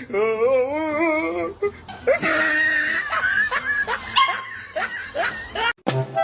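A dog vocalizing in a long wavering whine for about a second and a half, then short yips mixed with a person laughing. The sounds cut off abruptly near the end.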